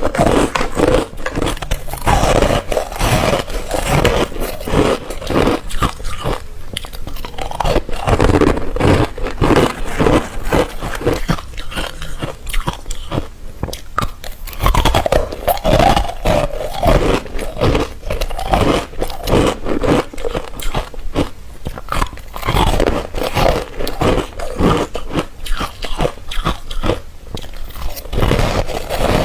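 Close-miked teeth biting into ice, crunching in rapid, uneven bites one after another.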